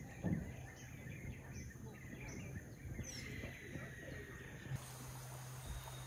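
Faint outdoor natural ambience with occasional soft bird chirps, and one soft low thump shortly after the start.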